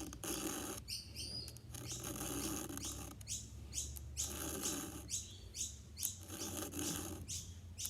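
Chainsaw file rasping over the cutters of a Stihl pole saw's small chain in light, repeated strokes, a short scrape about twice a second, over a faint low hum.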